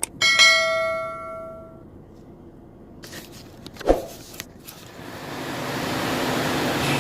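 A single chime rings out and fades over about a second and a half, then come a few sharp clicks and a thump, and a steady rushing vehicle noise builds up over the last two seconds.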